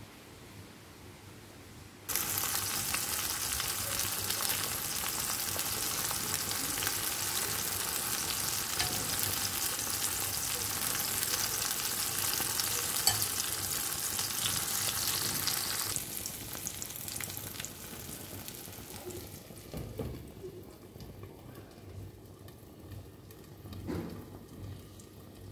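Hot oil sizzling loudly in a frying pan as beaten egg is poured over frying tomato and onion slices. The sizzle starts suddenly about two seconds in and drops to a softer hiss partway through, with a couple of soft knocks near the end.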